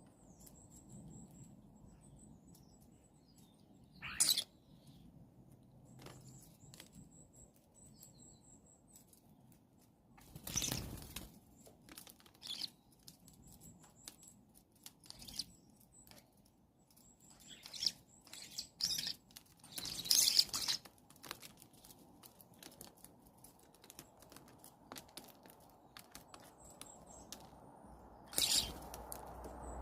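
Starlings feeding: thin, high squeaky whistles come and go over many small pecking clicks and taps. Four louder rushing bursts of wing flaps break in, the loudest two about a third and two thirds of the way through.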